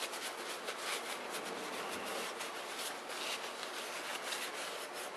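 A paper towel rubbing and rustling in a run of short, scratchy, irregular strokes as a new oil pump gear is wiped off by hand.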